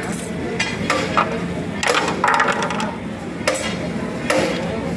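Small petrol engine of a rail-cutting saw running steadily, with irregular sharp metallic clinks and knocks, about seven over five seconds, a few of them ringing briefly.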